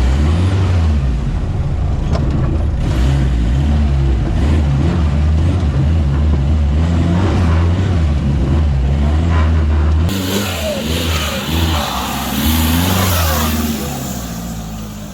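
Off-road 4x4's engine revving hard under load as it sets off on a trial run, the revs rising and falling. About ten seconds in, the engine note eases and breaks up while a loud hiss joins it.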